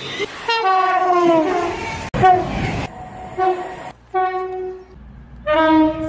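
Passenger train horns, heard as a string of short edited clips. The first blast slides down in pitch as the train speeds past. After an abrupt cut there is a brief rumble of the passing train, then several shorter, steady horn blasts, each clip cut off suddenly.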